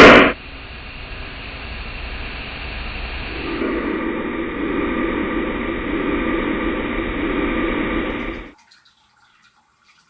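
Homemade sound effect: a loud, sharp crack right at the start, then a steady rushing noise that grows fuller about three and a half seconds in and stops abruptly about a second and a half before the end.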